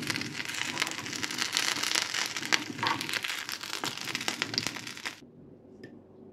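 Rice and zucchini fritters shallow-frying in hot oil in a pan: a dense sizzle full of crackles and pops, which cuts off about five seconds in.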